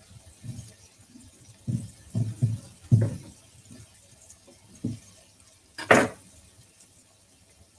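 Kitchen knife slicing a tomato on a wooden chopping board: a few dull knocks as the blade meets the board, then a sharper, louder clack just before six seconds in.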